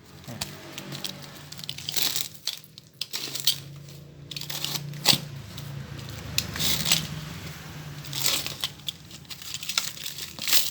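Packaging being opened by hand: irregular tearing, rustling and crinkling with scattered sharp clicks.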